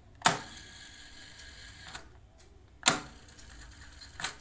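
Cassette deck transport keys clicking as they are pressed, four sharp clicks, the loudest near the start and about three seconds in, with a faint steady whir of the deck's tape transport running between presses.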